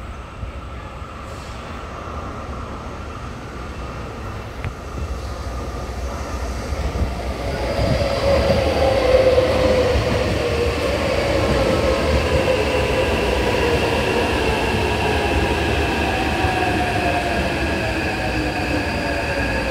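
Taipei Metro C381 electric multiple unit pulling into a station. A low rumble of wheels on rail grows louder as it approaches. From about eight seconds in, an electric whine falls steadily in pitch as the train brakes, with a few steady higher tones above it.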